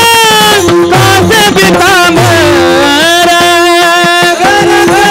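A male voice sings a Marathi devotional panchapadi in long held notes that glide between pitches, over a steady accompanying tone. A pakhawaj drum plays along, its deep strokes falling in pitch.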